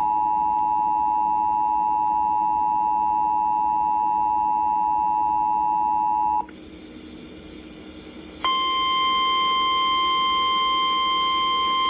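Emergency Alert System two-tone attention signal held steady, cutting off sharply about six seconds in. After a two-second lull of faint hiss, the single steady NOAA Weather Radio warning alarm tone starts, pitched slightly higher, and holds.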